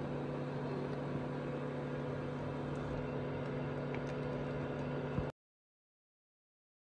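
Steady electric hum with a whirring fan, from a cooking appliance heating a pot of milk. It cuts off abruptly about five seconds in, leaving dead silence.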